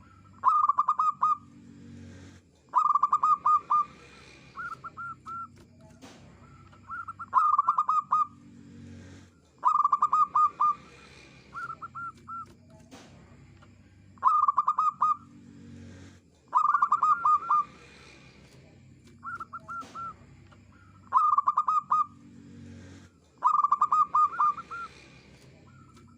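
Zebra dove (perkutut) singing: phrases of quick, staccato cooing notes, repeated about every two to three seconds, with shorter, softer phrases in between.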